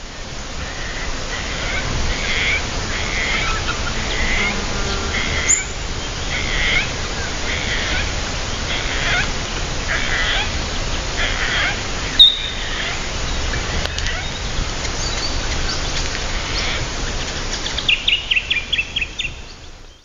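Field recording of birds calling: a short call repeats about once a second, a single sharp chirp stands out about twelve seconds in, and a quick run of rapid notes comes near the end, all over steady background noise.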